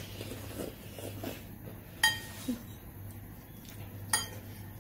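Metal fork clinking against a ceramic noodle bowl about two seconds in, with a short ring, amid other soft clicks of eating utensils, a sharper one near the end.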